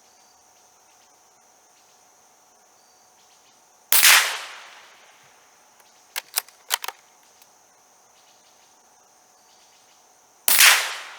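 Two shots from a .22 Savage B22-V bolt-action rifle, one about four seconds in and another near the end, each with a short ringing tail. Between them come a few quick clicks of the bolt being worked, with a steady insect drone underneath.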